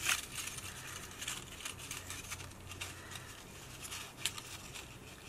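Folded cardstock pieces being handled and pressed together, a faint rustle with light scattered clicks and a sharper tap at the start and about four seconds in.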